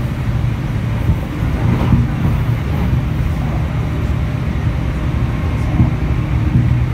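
Running noise of an electric train heard from inside the car: a steady low rumble with a few faint clicks.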